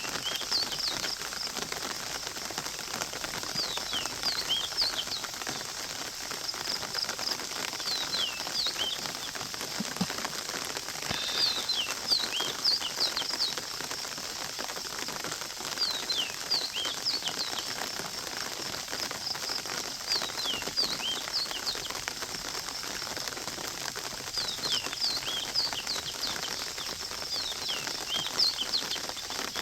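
Birds calling in the background: clusters of quick whistled notes that drop in pitch, repeating every few seconds, over a steady high hiss.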